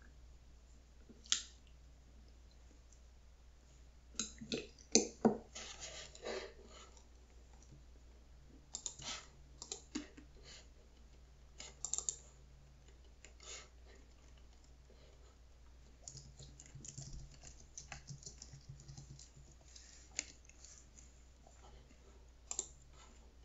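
Typing on a white Apple Magic Keyboard: soft, quick keystrokes in scattered, irregular bursts, busiest and loudest about four to six seconds in.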